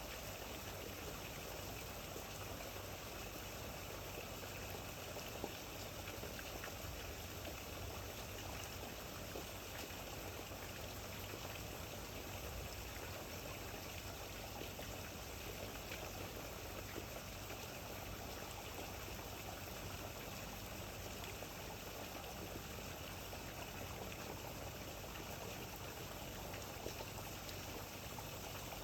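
Steady rain falling, an even hiss of rain with occasional single drop ticks.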